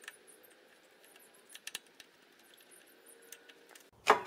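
Faint small clicks of a screwdriver turning out the main jet of a Honda HS80 snowblower's carburetor, then a quick run of louder clicks near the end as the jet is caught in a rag.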